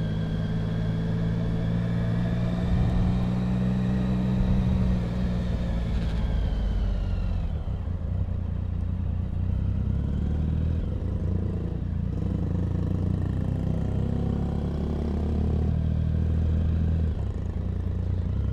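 2008 Triumph Speed Triple's 1050 cc three-cylinder engine running at low road speed, with the engine note falling about six seconds in.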